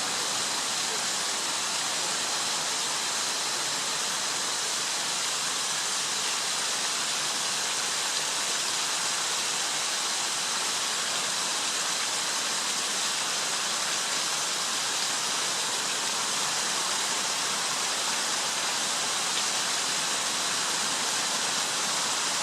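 Steady rushing of stream water, an even hiss with no change.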